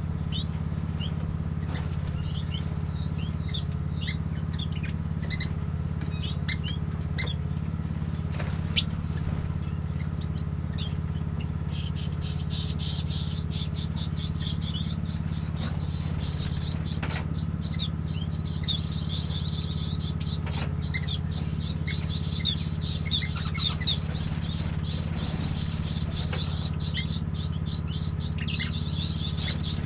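Small aviary birds (finches and waxbills) chirping, sparse at first and then a dense, continuous high twittering from about twelve seconds in. A steady low hum runs underneath, and a single sharp click comes near nine seconds.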